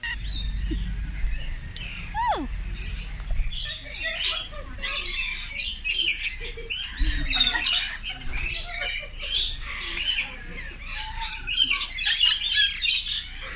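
Rainbow lorikeets screeching and chattering, with dense, rapid calls that build from about four seconds in. A single falling whistle sounds about two seconds in.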